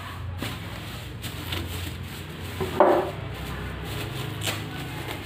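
Styrofoam packing cap and plastic bag being handled as a PC case is unpacked: rustling and rubbing, with one louder, brief sound about three seconds in.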